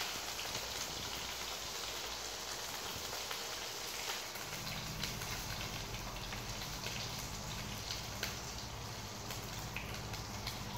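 Meat sizzling in oil in a frying pan on a portable gas stove: a steady frying sizzle, with a few light knocks of a metal spatula against the pan.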